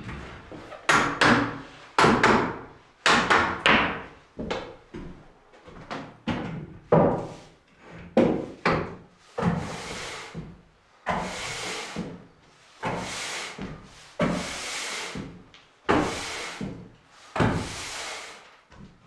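Sharp wooden knocks and clatter as things are picked up and set down on a wooden plank floor. From about halfway there is a push broom sweeping the new hardwood floorboards, in a steady series of long, hissing strokes about one a second.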